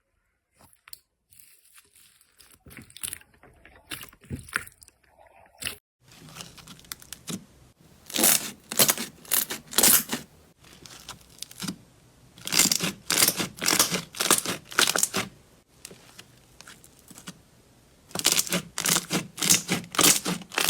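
Slime being squeezed and pulled apart by hand, giving crunchy crackling and popping: a few scattered small clicks at first, then, from about six seconds in, three dense runs of loud crackles.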